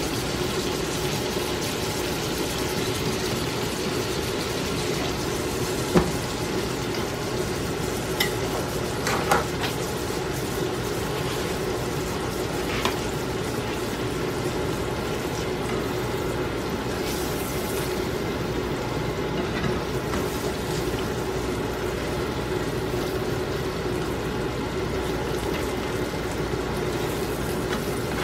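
Pancakes sizzling in butter and oil in a nonstick frying pan, with a steady low hum underneath. A spatula knocks against the pan a few times as they are turned.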